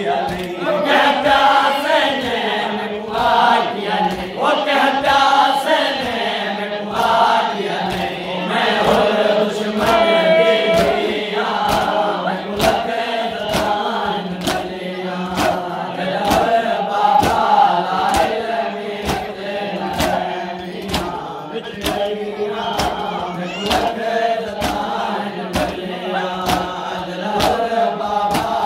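A crowd of men chanting a noha, a Shia mourning lament, in chorus, with a steady beat of sharp slaps under it from chest-beating (matam).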